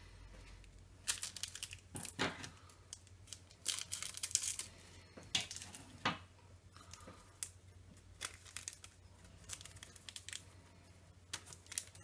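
Trading cards being handled and laid down on a table: a series of short papery rustles and crinkles, busiest in the first half, then scattered light clicks and slides.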